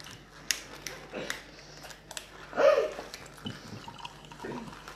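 Cola poured from a plastic bottle into a ceramic mug, with a few light clicks and taps around the table. A short, louder sound comes about halfway through.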